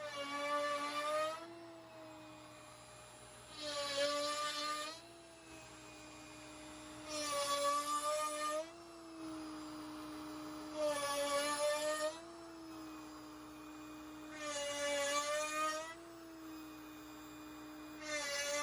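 CNC router spindle running steadily with a whine while a 7/8-inch box cove bit cuts divots into red-oak-veneered hardwood plywood: six loud cutting bursts of about a second and a half each, roughly every three and a half seconds, the spindle's pitch dipping slightly under load during each cut.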